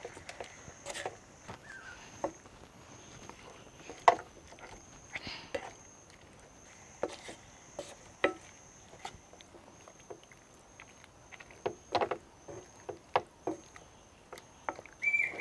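Wooden spatula stirring prawns in a small saucepan, giving scattered soft knocks and scrapes against the pan at uneven intervals.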